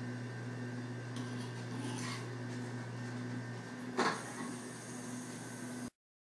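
Room tone with a steady electrical hum and a faint, regularly pulsing tone, broken by a single sharp knock about four seconds in; the sound cuts off abruptly near the end.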